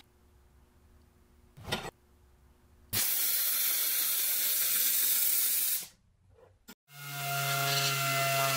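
MIG welder arcing: a short tack weld about two seconds in, then a continuous bead with a steady hissing crackle for about three seconds that cuts off suddenly. After a short gap, an air-powered disc sander spins up and runs with a steady whine.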